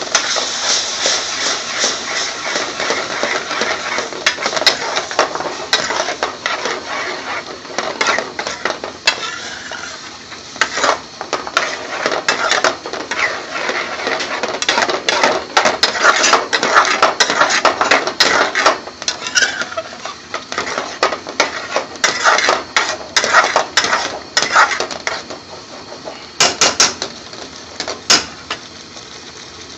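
Metal spoon scraping and clinking against a metal pan while stirring thick lentil curry: an irregular run of strokes with a few short pauses.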